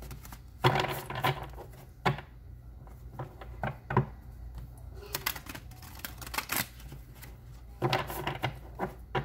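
A deck of oracle cards being shuffled by hand: irregular bursts of flicking, slapping card edges with a few sharper taps in between.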